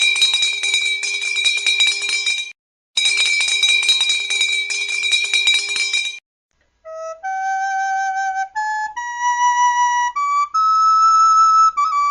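A high, fluttering sustained tone sounds twice, each time for about three seconds. After a short pause, a flute plays a short melody of clear, separate notes that step up and down.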